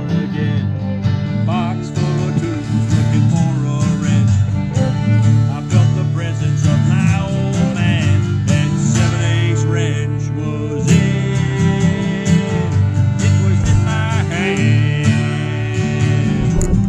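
Live acoustic jam in a country/bluegrass style: several acoustic guitars strumming and picking together with a fiddle carrying held, wavering melody notes.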